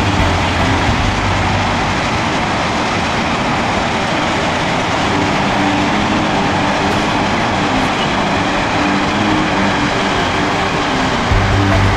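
Loud background music with a dense, steady texture and faint recurring low notes.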